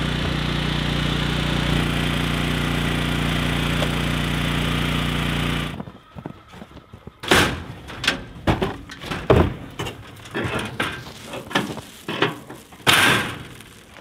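A steady engine-like hum that cuts off abruptly about six seconds in. After it comes a series of irregular knocks and thumps, three of them louder than the rest.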